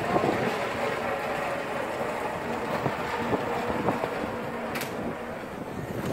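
Outdoor street-market ambience: a steady mix of traffic noise, distant voices and wind on the microphone, with one sharp click about five seconds in.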